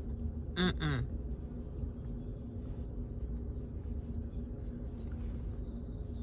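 A steady low background hum, with a brief bit of a woman's voice about half a second in.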